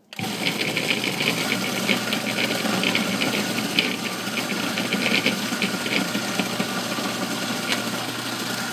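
Food processor switched back on and running steadily, pureeing frozen strawberries, with a low motor hum under a constant irregular clatter of frozen fruit against the blade and bowl.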